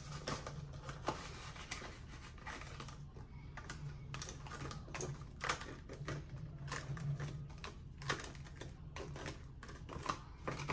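Clear plastic binder pockets and paper cash envelopes being handled: irregular light clicks, taps and crinkles of the plastic sleeve as an envelope is slid in and pressed flat, over a faint steady low hum.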